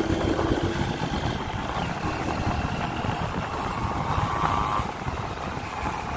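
Motorcycle engine running steadily with wind rushing over the microphone, as from a moving motorbike.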